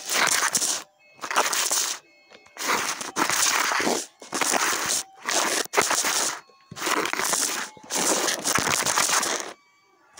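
Rustling and scraping against a phone's microphone as it is handled, in about seven bursts each roughly a second long with short gaps between.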